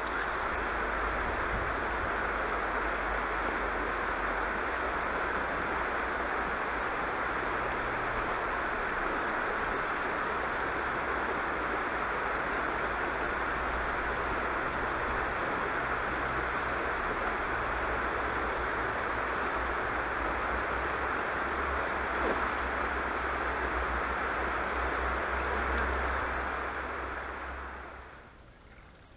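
Shallow river water rushing steadily over rocks in a riffle, with a low rumble beneath it. It fades out near the end.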